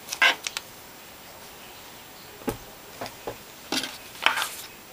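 Scissors cutting through a knit sweater: a few quick snips near the start, then single sharp clicks and short rustles of fabric as the cut piece is lifted away.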